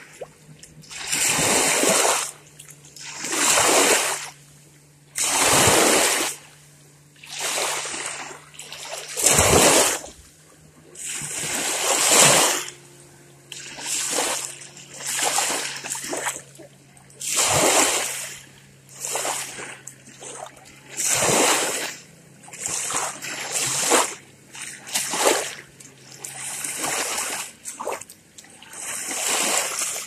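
Small lake waves lapping and splashing against the shore, one breaking every second or two in an uneven rhythm.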